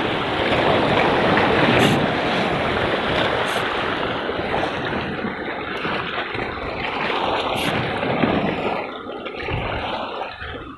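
Sea surf washing over shore rocks, with wind rushing on the microphone.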